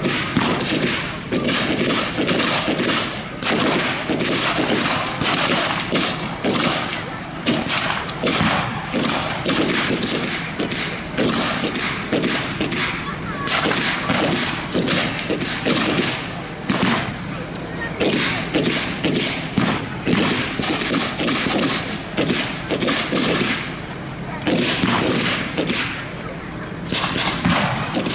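Sustained blank gunfire from WW2-era rifles: many overlapping sharp shots, several a second, with no long pause.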